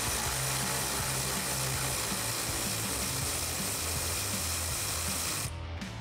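Electric ratchet with a T30 Torx socket running steadily as it backs out a bolt, cutting off about five and a half seconds in. Background music plays underneath.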